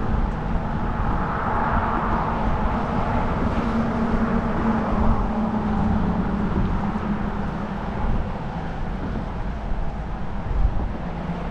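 Road traffic passing by: a steady rumble of engines and tyres with a faint low hum that swells in the middle and eases toward the end.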